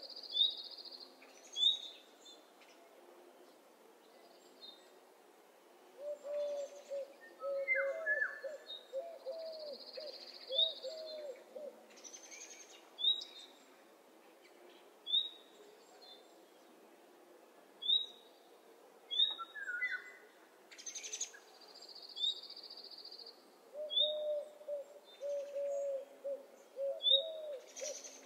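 Morning birdsong from several birds at once: short high chirps every second or two, a high buzzy note held about a second that returns three times, and twice a low run of quick repeated notes lasting several seconds.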